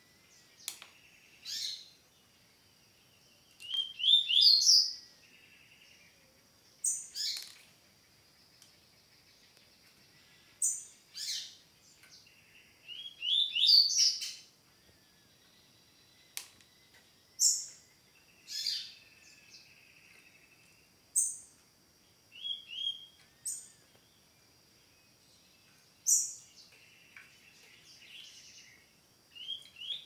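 A caged songbird singing a 'tui-tui' song: short phrases of sharp, sweeping notes every few seconds, with longer, louder runs of quickly rising notes about four and thirteen seconds in. A faint steady high-pitched whine runs underneath.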